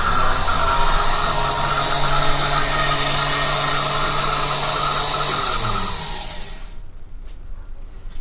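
Variable-speed power feed motor on a Rockwell milling machine driving the table: a steady motor and gear whine that falls in pitch and winds down to a stop about six seconds in.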